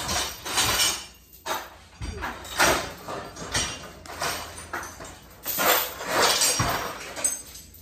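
Steel chains clanking and rattling in irregular bursts as they are dug out of a pile and handled, a lot of racket.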